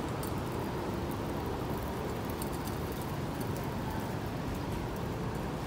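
Steady low hum of outdoor city ambience, like distant traffic, with a few faint scattered ticks over it.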